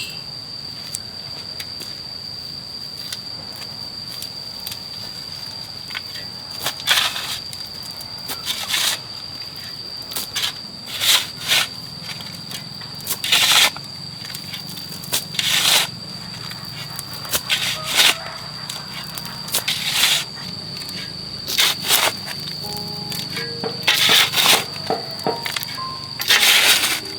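A shovel scraping into earth and gravel and tossing it, a scoop about every two seconds from about seven seconds in. A steady high insect drone runs underneath.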